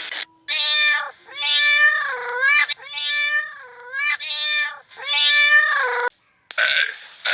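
Cat meowing repeatedly, about five drawn-out meows in a row.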